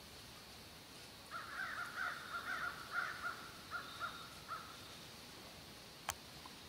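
A bird calling a quick run of about a dozen short notes over some three seconds, starting about a second in, then a single sharp click near the end.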